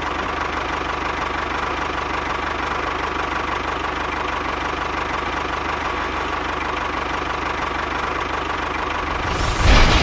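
Tractor engine running steadily with a fast, even knocking rhythm. It swells briefly louder just before the end.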